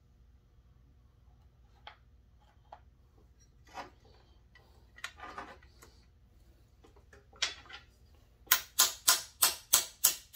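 Small hammer tapping a pin punch to drive the trigger pin out of a chainsaw's rear handle. A few scattered soft clicks and scrapes come first, then a quick run of about seven sharp taps near the end, roughly three a second.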